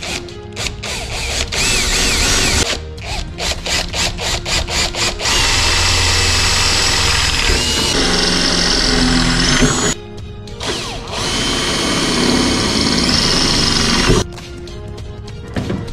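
Cordless drill boring spoiler mounting holes through masking tape into a car's trunk lid. It starts with a series of short trigger bursts, then runs steadily for several seconds, pauses briefly, and runs again before stopping sharply.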